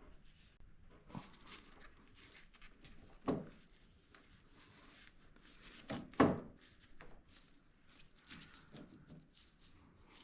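Scattered knocks and clunks of metal parts as a go-kart's steering rack is worked over in its mounts, the loudest a double knock about six seconds in.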